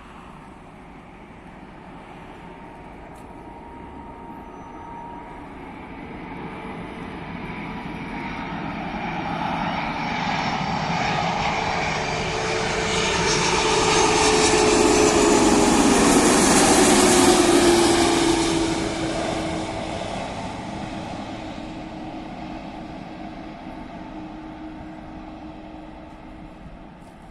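Airbus A330-243 MRTT Voyager tanker's twin Rolls-Royce Trent 700 turbofans passing on landing approach: the jet noise builds steadily, peaks about two-thirds of the way through, then fades away. As it goes by, its whine drops in pitch.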